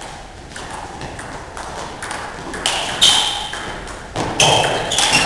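Table tennis ball clicking back and forth off bats and table in a rally, quick ticks about two a second, echoing in a large hall. A few louder sharp hits come in the second half.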